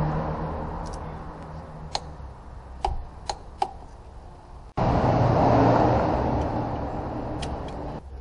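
A few small sharp clicks of parts and fittings being handled in a car's engine bay, over a steady mechanical background noise that cuts off and comes back louder about halfway through.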